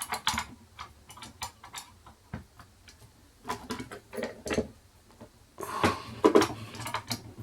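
Small metal clicks and rattles in irregular bursts from a single-lever door lock and lever-picking tools being handled. The busiest, loudest clatter comes near the end.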